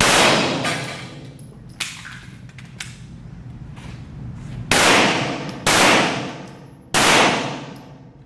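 Pistol shots at a shooting range, each trailing off in a long echo. There is one at the start and three more, about a second apart, past the middle. Fainter sharp clangs in between sound like bullets striking steel targets.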